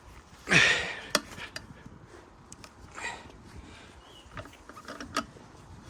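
A man grunting and breathing hard with effort as he works a car jack to push a tree away from a wall. There is a loud strained grunt about half a second in, a second heavy breath near three seconds, and several sharp clicks and knocks from the work in between.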